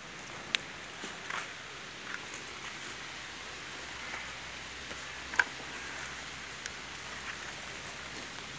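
A few short sharp clicks and taps over a steady faint outdoor hiss, the loudest about five seconds in, as hands work a fishing hook out of a fish's mouth.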